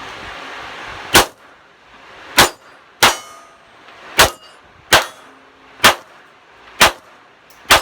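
Glock 17 pistol firing eight shots of 9mm 147-grain ammunition in a timed string, spaced unevenly about a second apart, with ringing after some shots.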